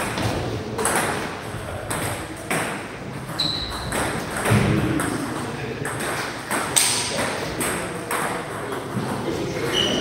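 Table tennis balls clicking off bats and tables during rallies, a string of sharp, irregular clicks.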